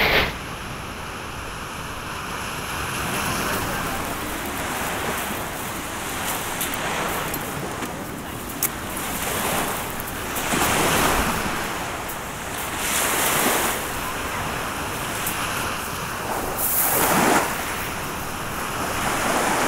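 Small waves breaking and washing up the beach, the surf swelling and fading every few seconds.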